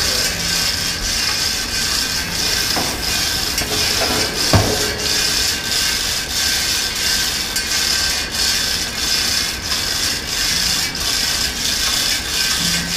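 Hand-chain hoist (chain fall) being hauled to lift a heated flywheel shrink link: the chain rattles through the pocket wheel and the load brake ratchet clicks in a steady rhythm. There is one sharper metallic knock about four and a half seconds in.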